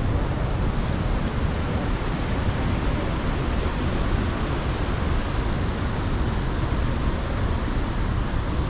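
Steady rushing roar of the Rhine Falls, a large waterfall, with no change throughout.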